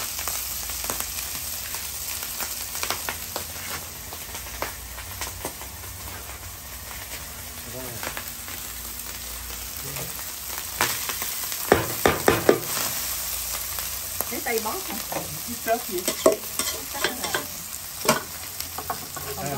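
Rice, eggs and diced ham sizzling on a steel flat-top griddle while metal spatulas scrape and tap across the hot plate. There is a run of louder clacks about midway.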